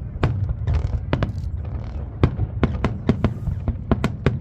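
Aerial fireworks exploding in quick succession: about a dozen sharp bangs, coming thickest in the second half, over a continuous low rumble.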